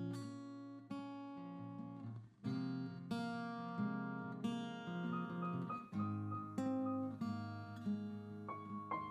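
Acoustic guitar playing a slow picked and strummed introduction, chords and single notes plucked one after another and left to ring.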